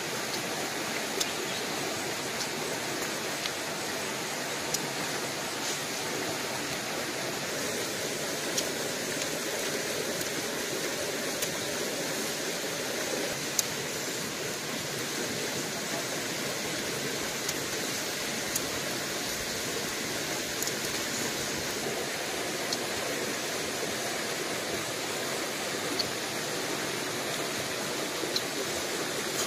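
Steady rush of a stream, with short sharp clicks every one to three seconds.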